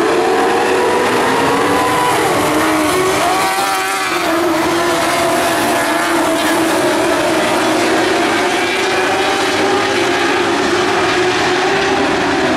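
A pack of open-wheel speedway midget cars racing on a dirt oval, several engines running hard together. Their pitch dips a couple of seconds in as they go through the turn, then climbs back up and holds.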